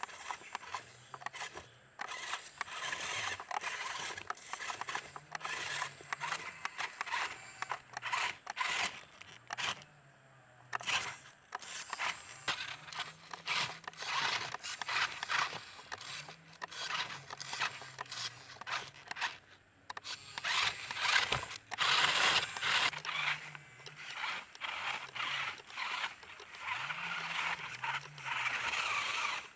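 Small RC truck driving over rough ground: tyres scraping and crunching, with a low motor hum that rises and falls in pitch as it speeds up and slows, easing off briefly twice.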